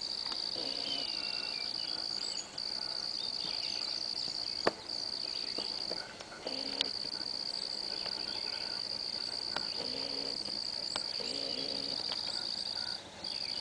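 Chorus of crickets or katydids making a steady, high, continuous trill that breaks off briefly three times. A few sharp clicks sound over it, the loudest about five seconds in.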